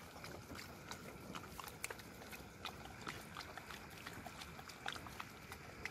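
Several stray dogs eating wet chicken rice off newspaper: faint, irregular chewing and smacking clicks over a steady hiss of rain.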